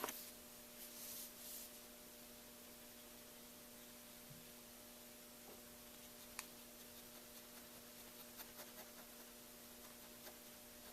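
Faint scratching of a glitter gel pen colouring on stamped paper, in short strokes, over a steady electrical hum.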